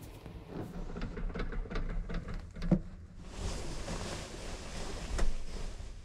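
Duvet and sheet being pulled and shifted by hand: irregular rustling with a sharp knock a few seconds in, then a dense, steady rustle of the fabric through the second half, with another knock near the end.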